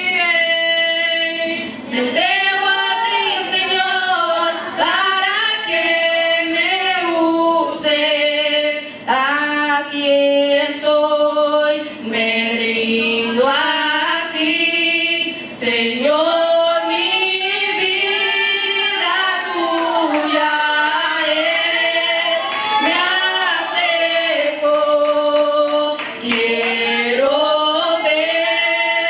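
A youth choir of mostly female voices sings a Spanish Pentecostal worship song into handheld microphones, in long held phrases with brief breaths between them.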